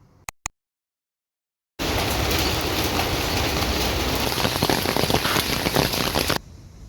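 Two short clicks, then about a second of dead silence, then a loud, steady pattering of falling water that starts suddenly and cuts off suddenly near the end, leaving a faint hiss.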